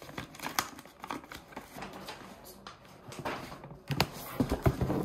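Wrapping paper rustling and crinkling as a parcel is unwrapped by hand, with taps and knocks from the box underneath being handled, loudest near the end.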